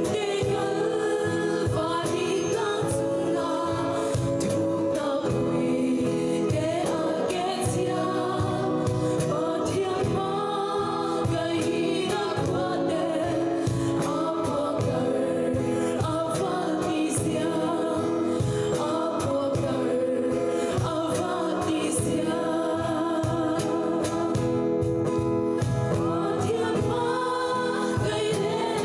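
A group of five women singing a Mizo Christmas song in harmony through microphones, over steady instrumental accompaniment.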